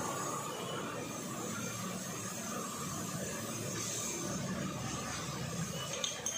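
Steady low hum with hiss, like machinery running in the background, and a light click about six seconds in.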